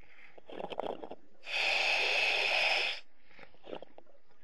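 A scuba diver's breath through the regulator: a short crackly rush under a second in, then a steady hiss of air lasting about a second and a half.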